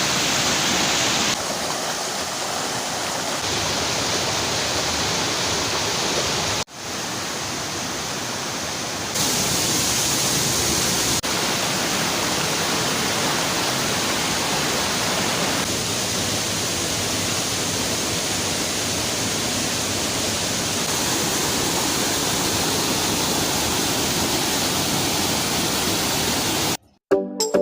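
Waterfall and river water rushing as a steady noise, in several shots cut together, so the level and tone shift abruptly a few times.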